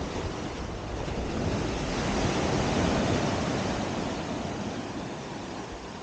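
Surf washing in: a wave's noise swells to a peak about halfway through and fades again, with wind buffeting the microphone.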